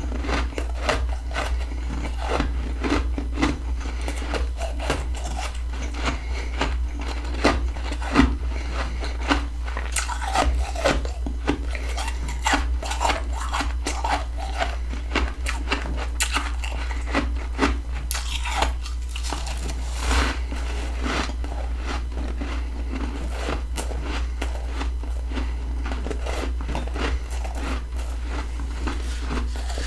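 Someone biting and chewing mouthfuls of freezer frost: a dense, irregular run of crisp crunches and crackles, over a steady low hum.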